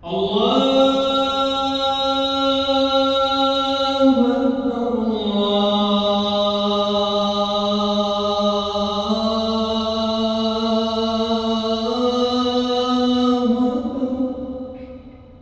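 A man's voice reciting the Quran in the melodic tajwid style, drawing out one long phrase over about fourteen seconds of held notes. The pitch steps down about four seconds in, rises again twice later, and the phrase dies away near the end.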